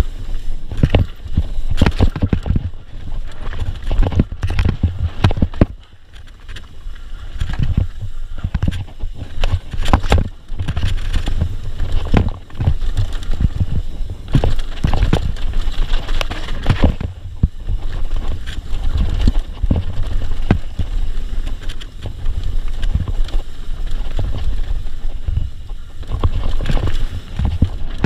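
Mountain bike ridden fast down a rough dirt-and-rock trail: tyres rumbling and the bike clattering over rocks and roots in a dense run of sharp knocks, with a steady low wind rumble on the microphone.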